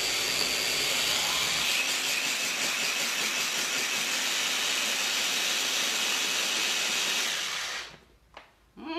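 Electric blender running at full speed, puréeing cooked cauliflower with spices into a smooth mash. It runs steadily and loudly, then shuts off abruptly about eight seconds in.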